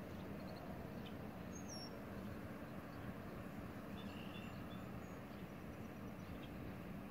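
Steady low outdoor rumble with a faint hum, and a few brief high bird chirps, one about two seconds in and a couple more around four seconds.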